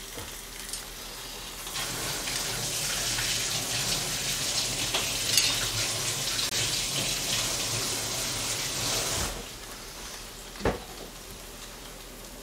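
Kitchen tap turned on and left running for about seven seconds, then shut off, over the quieter steady sizzle of Spam slices frying in a pan. A short knock comes near the end.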